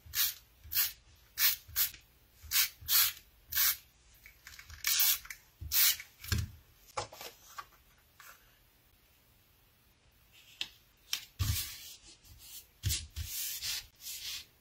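Quick rasping strokes of a handheld tape runner laying adhesive on cardstock, about a dozen in the first six seconds. After a quieter pause, more short rubbing and scraping strokes come near the end.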